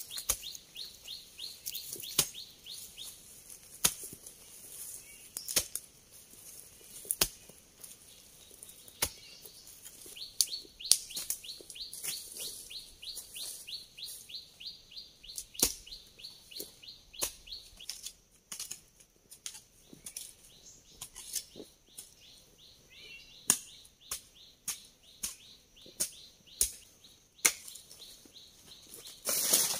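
Sharp, regular strikes of a hand tool working the ground, about one every one and a half to two seconds and coming quicker in the second half, as steps are cut down a slope. A rapid, high ticking call runs in the background for several seconds at a time.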